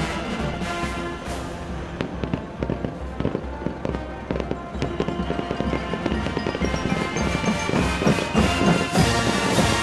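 Background music with a steady beat laid over a fireworks display: repeated bangs and crackling bursts that come thicker and louder in the second half.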